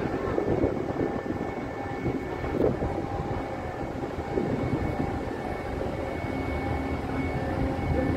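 Steady low rumble of heavy engines running, with faint steady high whines over it.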